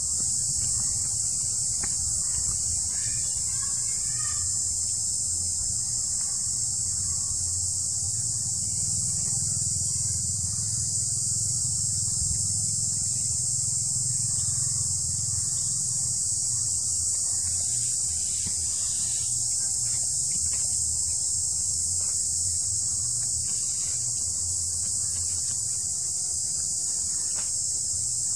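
Steady, high-pitched buzzing chorus of insects, with a low rumble underneath. A few faint short chirps come about three seconds in and again a little past the middle.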